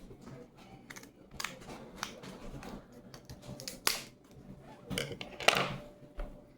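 Snow crab shell being cracked and snapped open, a run of irregular crackles and crunches with two sharper, louder cracks, one about four seconds in and the loudest about five and a half seconds in.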